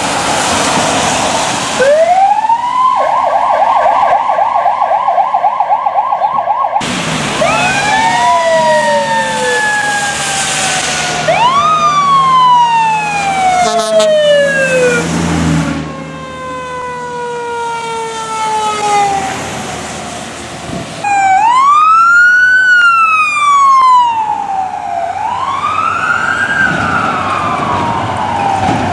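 Electronic sirens of responding fire department vehicles, in a run of separate clips: a wail that rises and switches to a fast yelp, then long falling wails, then slow rise-and-fall wails about two and a half seconds apart near the end. Tyres hiss on wet pavement at the start.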